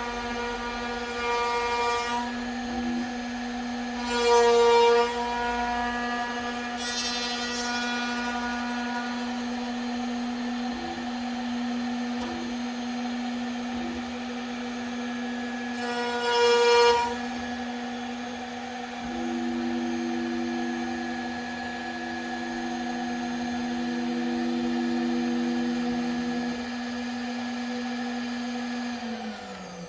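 CNC router spindle running at a steady high pitch while a surfacing bit faces a wooden slab, taking a 1 mm pass. The cut grows louder and rougher several times as the cutter bites harder into the wood. Just before the end the spindle winds down, falling in pitch as the pass finishes.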